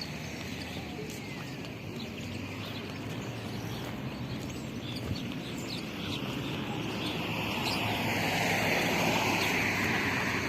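Steady outdoor background noise with faint clicks, swelling into a louder rush over the last few seconds.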